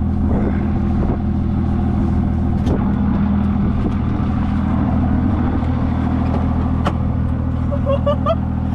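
Motor vehicle engine running steadily while driving on the road, a constant low drone.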